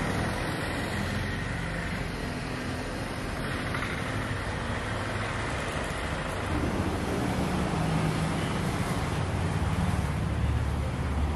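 Street traffic noise: a steady rumble of passing vehicles, with a low engine hum growing a little louder about six and a half seconds in.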